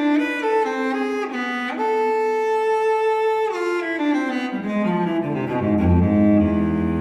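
Solo cello playing a slow melody: a long held note, then a line stepping downward that settles on a low, sustained note near the end.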